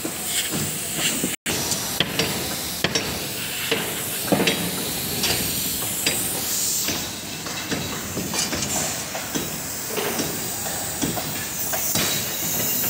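Construction-site noise: a steady hiss under frequent short knocks and clanks, with the sound cutting out for an instant about a second and a half in.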